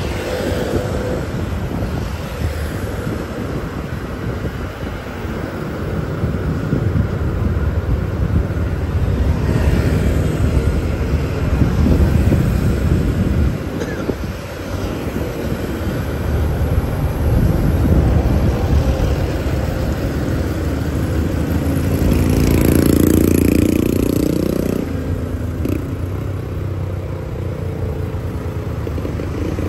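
City street traffic heard from a moving motorbike: a steady low rumble of engines and road noise. About three-quarters of the way through, a louder passing vehicle adds a pitched tone for a few seconds.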